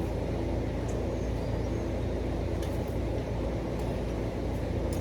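Steady low rumble of an engine running, with an even hum and a few faint clicks.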